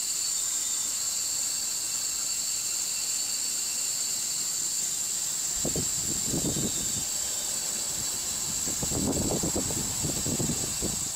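Outdoor background noise: a steady high-pitched hiss with a thin high whine, joined by a low rumble about halfway through that returns near the end.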